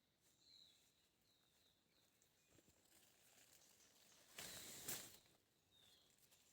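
Quiet woodland with a small bird chirping faintly, several short chirps falling in pitch. A brief rustle about four and a half seconds in is the loudest sound.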